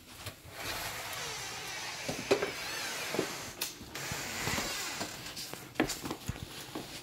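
Footsteps and camera-handling noise as someone walks through a small room: a rustling hiss with a few scattered knocks and clicks at uneven intervals.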